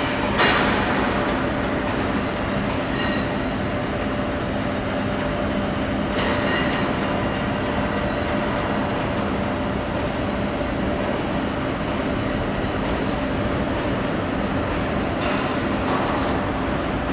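Steady mechanical running noise with a constant low hum, with brief louder swells about six and fifteen seconds in.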